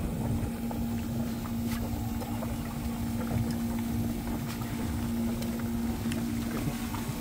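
Small 12-volt pump running in a cooler live well, a steady hum over the churning and bubbling of the circulating water.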